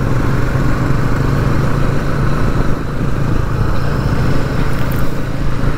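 Bajaj Pulsar NS200 motorcycle's single-cylinder engine running at a steady riding speed, with steady wind and road noise over it.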